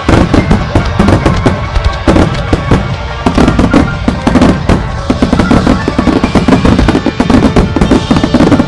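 Starmine fireworks display: a dense, rapid barrage of booms and crackles from aerial shells and ground-launched comets, several blasts a second, with music playing underneath.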